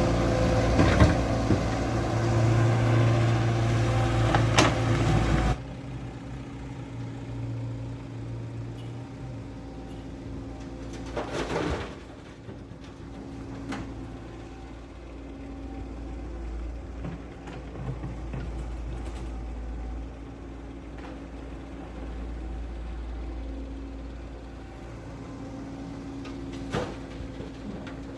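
Small electric motors and gearing of radio-controlled model construction vehicles whirring steadily. The sound drops abruptly about five and a half seconds in and carries on quieter, with occasional clicks and knocks.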